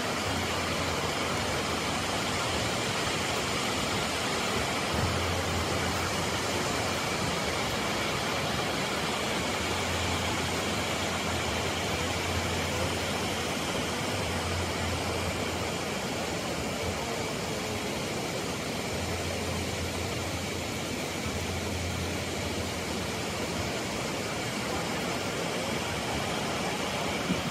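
Steady rushing of a broad waterfall, many cascades about 29 metres high falling into a pool, with a low rumble that comes and goes.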